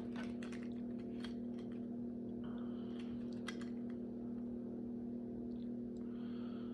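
Small plastic toy parts being handled and fitted together, giving scattered light clicks and taps, over a steady electrical hum.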